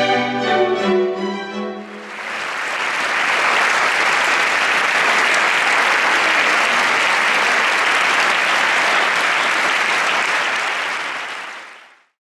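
A string orchestra with solo cello plays its final notes, ending about two seconds in; then an audience applauds steadily, fading out near the end.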